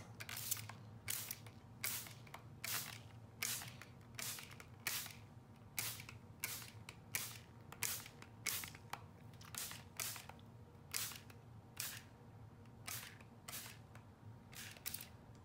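Spray bottle squirting water in a long run of short hissing sprays, about two a second, wetting dry Brusho watercolour powder on paper.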